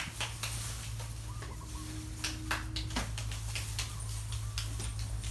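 Scattered clicks and rustles over a steady low hum, with a chicken clucking briefly about a second and a half in.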